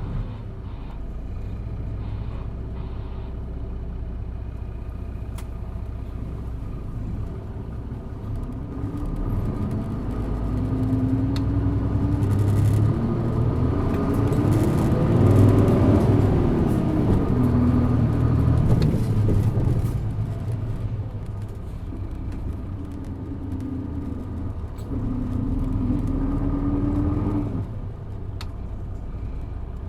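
Isuzu Erga city bus's diesel engine heard from inside the bus, accelerating hard: the engine note climbs steadily from about a third of the way in to its loudest near the middle, falls back, then rises again briefly before dropping off near the end.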